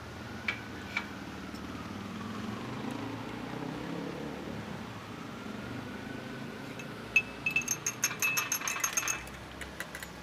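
A quick run of about a dozen bright, ringing clinks, hard metal or glass pieces struck together, lasting about two seconds near the end. Earlier come two light taps and a faint distant siren rising and falling.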